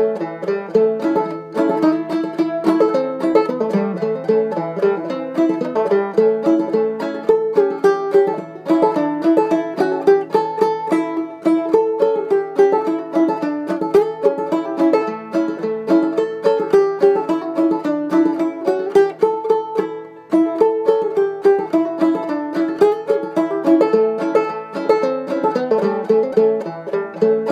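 Solo banjo playing an old-time fiddle tune, a steady stream of quick plucked notes.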